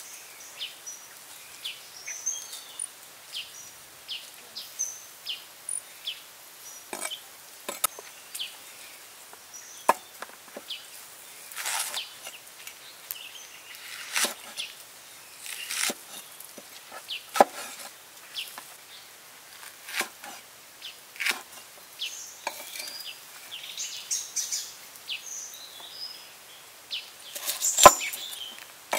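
Cleaver cutting green chillies and garlic on a wooden chopping board: irregular crisp cuts and knocks of the blade against the wood, with a hard knock near the end.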